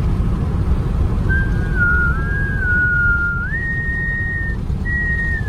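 Two people whistling a melody together, nearly in unison, over the steady low road and engine rumble inside a moving Toyota pickup's cab. The whistling starts about a second in, with the two voices slightly apart for a moment before merging, and the tune steps up in pitch near the middle.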